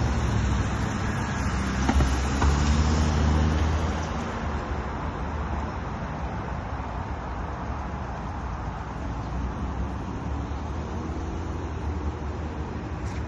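City street traffic: a motor vehicle runs close by and loud for the first few seconds, then fades into a steady traffic rumble.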